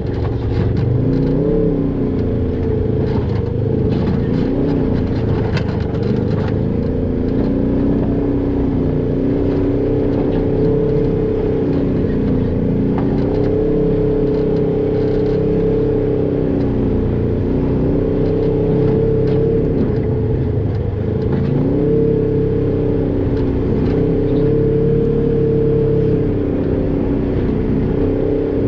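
Polaris RZR XP 1000 side-by-side's parallel-twin engine crawling over rocks, its pitch rising and falling every few seconds as the throttle is blipped and eased. There are scattered clicks and knocks, mostly in the first several seconds.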